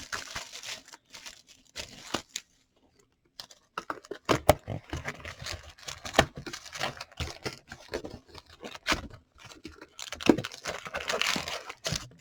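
Plastic and foil wrappers being torn open and crinkled while a trading-card box and its packs are unsealed, with sharp clicks of handling. The sound pauses briefly about three seconds in, then grows busier and is loudest near the end.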